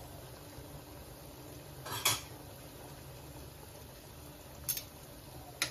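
Sugar syrup bubbling steadily in a stainless steel pot, with a metal spoon clinking against the pot once about two seconds in and twice more, more lightly, near the end.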